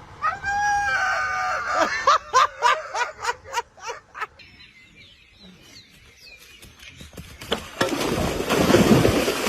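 Domestic fowl calling: one long drawn-out call, then a quick run of short sharp notes, about four a second. About three quarters of the way in, a loud rough noise takes over.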